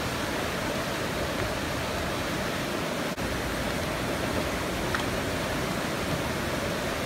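Whitewater river rapids rushing steadily, an even wash of water noise with a momentary break about three seconds in.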